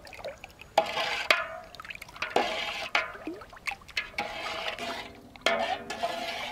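Grape juice being stirred with a steel ladle in a large metal pot: the liquid swishes and sloshes, with several sharp knocks of the ladle against the pot. The stirring is dissolving sugar just added to the juice.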